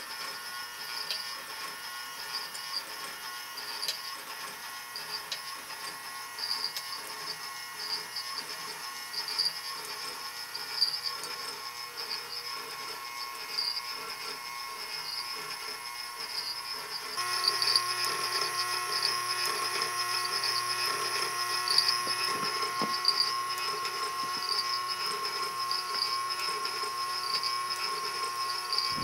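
A motorized kinetic sculpture running: a small electric motor whirring steadily through its metal linkages, with a light tick about once a second. About two-thirds of the way through it gets louder and a steadier hum joins in.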